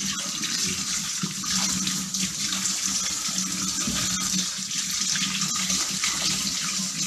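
Kitchen tap running steadily into a stainless steel sink, the stream splashing over radishes being rinsed by hand.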